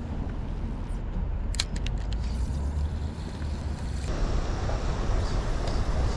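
Steady low rumble of city traffic, with a few faint clicks about a second and a half in and the noise growing somewhat fuller about four seconds in.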